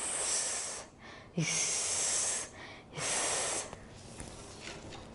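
A person voicing the /s/ sound of the letter S as a drawn-out hissing "sss", three times: one long hiss, a second longer one, and a short third one.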